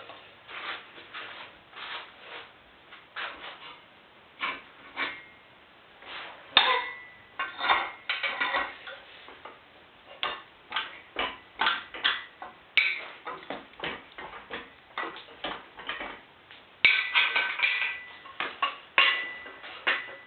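Cast-iron 420A engine block being rotated over on an engine stand: irregular metallic clicks, knocks and clanks, a few ringing briefly.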